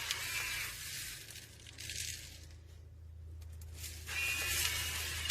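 Electric gravity-activated salt or pepper grinder running, its small motor whining over a gritty crunching of grinding. The grinding stops for about a second midway and then starts again.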